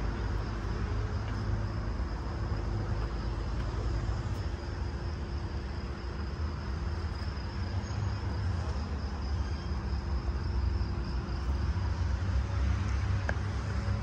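Crickets chirring steadily in a high, faintly pulsing band over a constant low rumble of city traffic.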